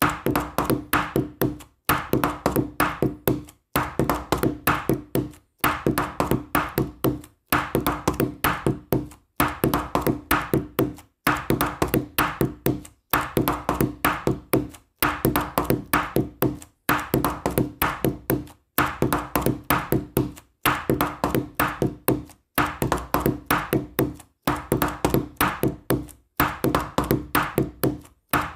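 Background music: a short loop of quick percussive taps over a steady low note, repeating about every two seconds.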